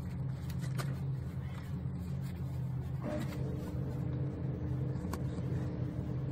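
Light swiping strokes of paint stripper being worked over thick old paint on a wooden model wagon, under a steady low mechanical hum. A second steady tone joins the hum about three seconds in, and there are a couple of faint clicks.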